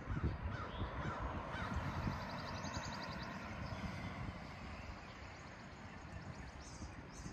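Roadside outdoor ambience: gusty wind rumbling on the microphone over a wash of traffic noise that is strongest in the first few seconds and then fades. A few short bird calls come early, and a fast high trill about two seconds in.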